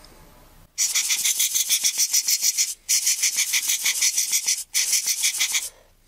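Rubber hand air blower squeezed rapidly at a camera lens's rear optics: quick runs of hissing air puffs, several a second, in three bursts with short pauses, blowing dust out of the lens.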